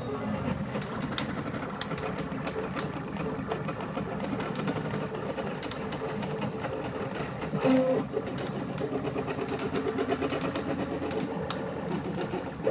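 CTC dual-extrusion 3D printer running a print. Its stepper motors give a steady pulsing whine that shifts in pitch as the print head moves, with light ticking. A brief louder tone comes about eight seconds in.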